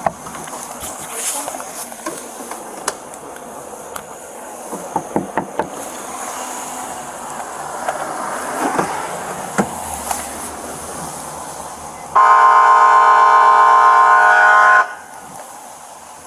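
A loud, steady horn blast held for about two and a half seconds, starting and stopping abruptly about three-quarters of the way through. Before it there is faint rustling with scattered light clicks and knocks.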